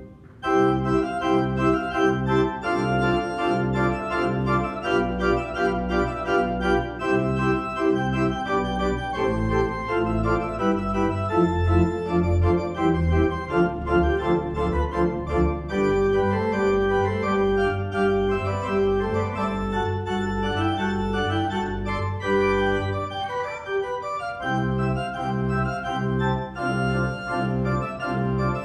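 Organ playing a piece of sustained, steadily moving chords over a pedal bass line. It resumes after a short break at the start, and the bass drops out briefly near the end.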